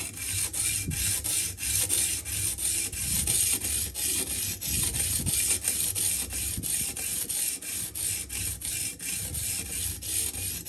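A 150-grit diamond sharpening stone on a guided rod-and-arm sharpening system rasping back and forth along a steel knife edge in quick, even strokes. The arm has not yet been locked down, so it has some play.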